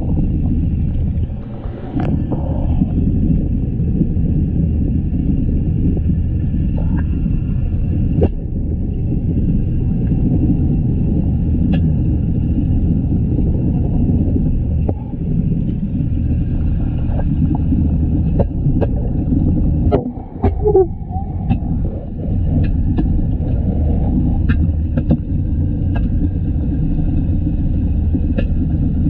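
Steady low rumble of a large aquarium's pumps and water circulation, heard through a camera held underwater, with faint steady whine tones and scattered light clicks. The sound is briefly disturbed about two seconds in and again about twenty seconds in.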